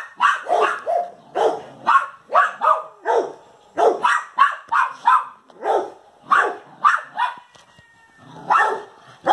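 Small dog barking repeatedly at a cat, about two or three sharp barks a second, with a short pause near the end before one last bark.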